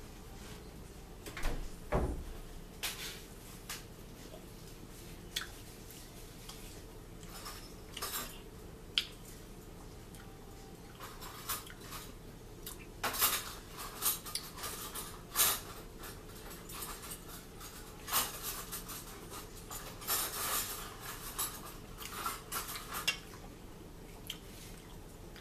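Fork clinking and scraping on a dinner plate while eating, in irregular taps and scrapes that come more often in the second half.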